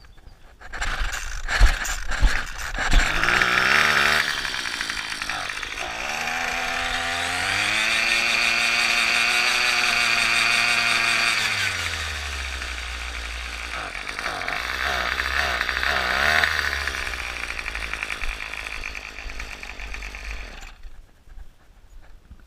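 A gas string trimmer's small two-stroke engine running after a few sharp strokes at the start: it revs up to a steady high pitch, drops back, revs up briefly a second time, then slows and cuts off shortly before the end.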